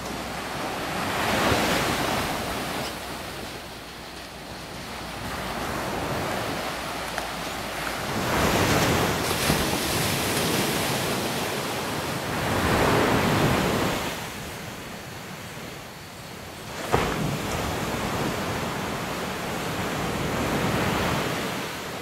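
Surf breaking on a sandy beach, the waves swelling and washing in every few seconds. A single sharp knock about three-quarters of the way through.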